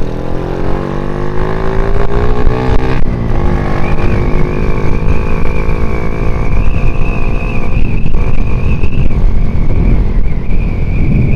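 Motorcycle engine heard while riding. The revs climb for about three seconds, dip briefly at a gear change, then run steadily, with a high thin whine alongside.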